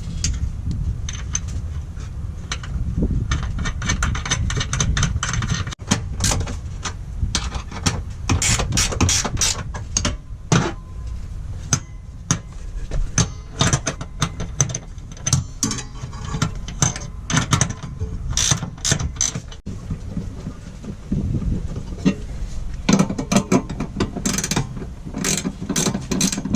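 Ratchet wrench clicking in repeated bursts of rapid clicks, running down the bolts that hold a car seat in.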